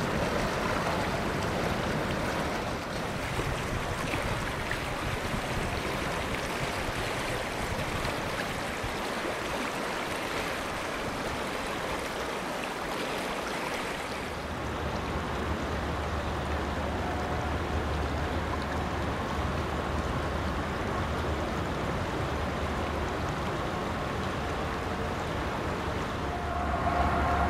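Rushing river water running over gravel bars, a steady wash of noise. About halfway through a steady low rumble joins it, with faint level tones near the end.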